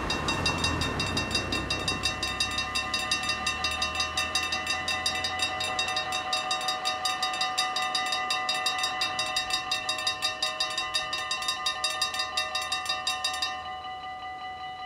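Railroad crossing warning bells ringing rapidly and steadily while the barriers lower. About 13 seconds in the strokes stop as the barriers close, and the bell tone rings out. A car rumbles over the crossing at the start.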